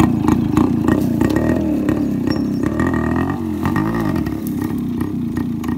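Yamaha RX100's two-stroke single-cylinder engine running as the motorcycle is ridden off to show its pickup, its pitch rising and falling about three and a half seconds in.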